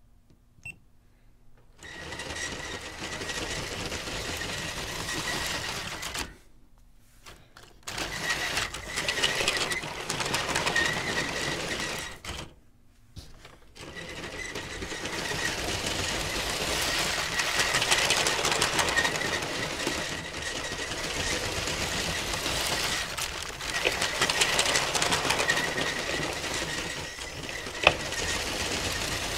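Vintage LEGO 12-volt train motor in the 725 steam locomotive running on plastic track: a steady whirr with a thin high whine. It starts about two seconds in, cuts out twice for a second or two and starts again, with a sharp click near the end.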